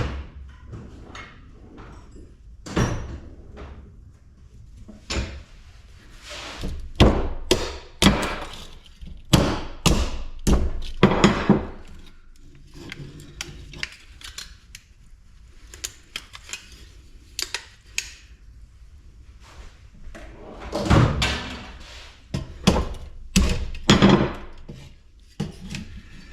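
Irregular heavy knocks and thumps of tools on the aluminum housing of a large light fixture being forcibly taken apart, in clusters with short quieter gaps.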